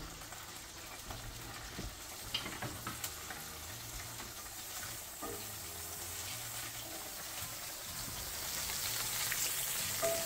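Butter melting and sizzling in a hot cast-iron skillet with leftover oil, stirred with a wooden spoon. A soft, even sizzle that grows a little louder toward the end, with a few faint clicks.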